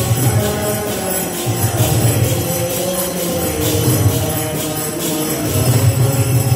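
Kirtan music: kartals (small hand cymbals) clash in a steady rhythm over sustained melodic tones and low phrases that come and go.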